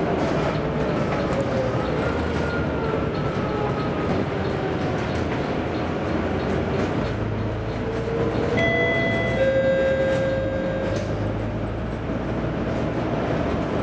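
Volvo B9TL double-decker bus's six-cylinder diesel engine and drivetrain running under way, heard from inside the bus, with a whine that rises and falls in pitch as the bus moves off and gathers speed. A few steady tones come in about eight and a half seconds in.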